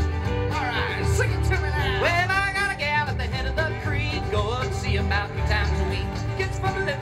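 Live bluegrass band playing: banjo and acoustic guitar strumming over an upright bass, with a man's voice singing from about a second in.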